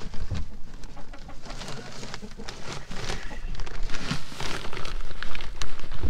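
Chickens clucking over a busy crackle of rustling and scratching.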